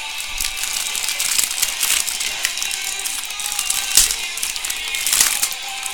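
Crinkling and crackling of a clear plastic trading-card pack wrapper handled and peeled open by hand, with louder crackles about four and five seconds in.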